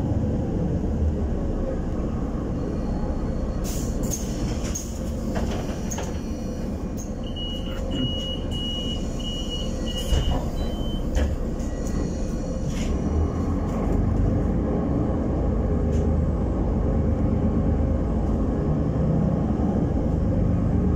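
Cabin noise inside a Solaris Urbino 12 city bus under way: a steady engine and road rumble, with scattered rattles and knocks from the body. A run of high beeps, about two a second, sounds for a few seconds near the middle, and the rumble grows a little louder later on.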